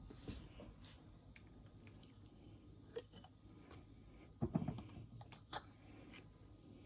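Faint kitchen handling noises: scattered clicks and short squelchy scrapes, with a louder clatter about four and a half seconds in, as mayonnaise is got out of its jar and spooned for a sauce.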